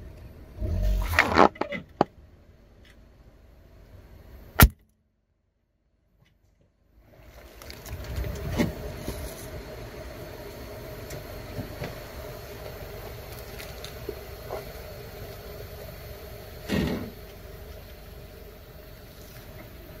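A car tyre rolling over and crushing objects: a burst of crunching and cracking in the first two seconds and a sharp snap near five seconds. After a couple of seconds of dead silence, a steady car engine hum with a few more cracks and crunches.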